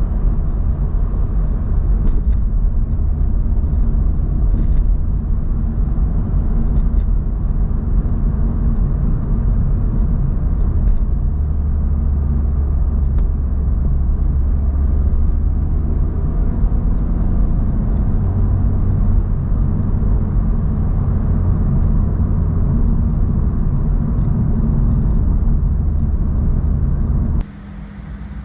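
Honda Civic Type R on the move: a steady, low rumble of engine and road noise. It cuts off abruptly near the end.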